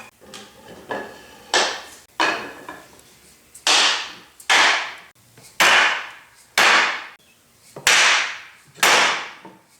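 A hammer striking a driver block about once a second, about eight firm blows that grow harder a few seconds in, each with a short ringing decay, driving a bearing onto the planer's cutter head shaft by its race.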